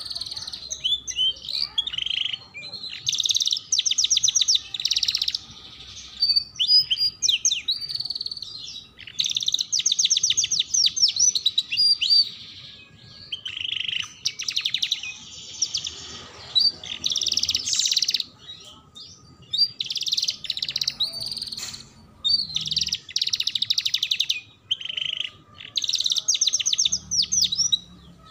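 Yellow domestic canary singing in phrases of fast trills, chirps and whistled notes, with short pauses between phrases.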